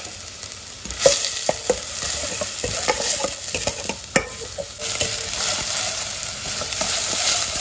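Chopped onions sizzling as they fry in oil in a wok, being stirred with a spatula that clicks and scrapes against the pan. The sizzle grows louder about a second in, and there is a sharp knock of the spatula a little after four seconds.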